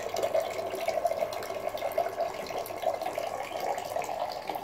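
Thin stream of water from a rechargeable electric carboy pump pouring steadily into a nearly full glass jug, with the pump's small motor running softly. The jug is close to the level at which the pump shuts itself off.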